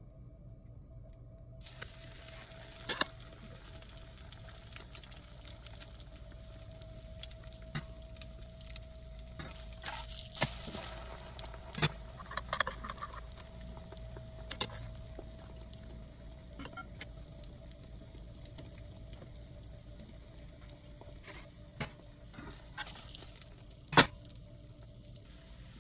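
Egg-soaked bread frying in a nonstick pan: a steady sizzle that starts about two seconds in. A few sharp clicks and knocks sound over it, the loudest near the end, and there is a faint steady hum underneath.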